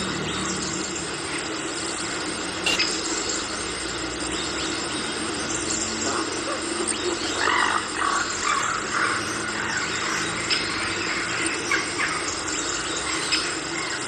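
Tropical forest ambience: a dense, steady chorus of insects with scattered animal calls over it, a cluster of louder calls about halfway through.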